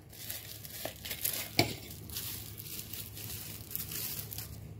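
Bubble wrap crinkling as it is unwrapped by hand, with two sharper crackles in the first two seconds.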